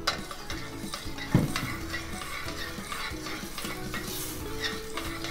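Pan sauce bubbling and sizzling over high heat in a stainless steel skillet while cubes of butter are stirred in with metal tongs. The tongs scrape and click against the pan, with one sharper knock about a second and a half in. The butter is melting into the reducing sauce, emulsifying and thickening it.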